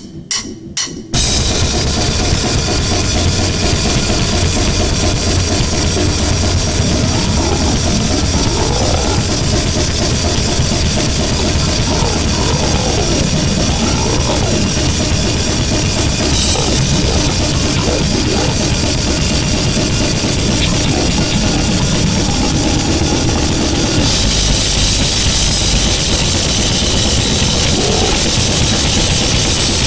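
Harsh noise recording: a few short stuttering bursts, then about a second in a loud, unbroken wall of distorted static that fills the whole range, with faint wavering pitched sweeps inside it and a hiss that turns brighter near the end.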